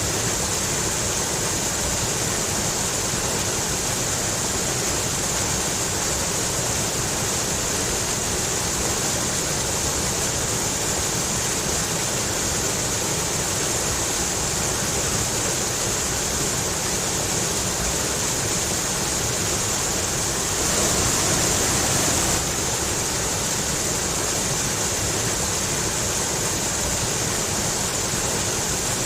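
Rushing mountain stream splashing over rocks, a steady full rush of water that swells briefly about three-quarters of the way through.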